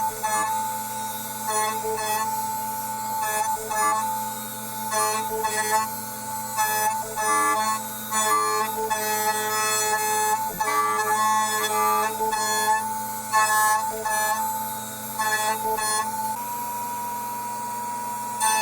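CNC milling machine roughing a radiused recess with a 12 mm flat end mill. The stepper motors whine in pitches that change and stop every second or so as the axes move, over a steady tone from the spindle.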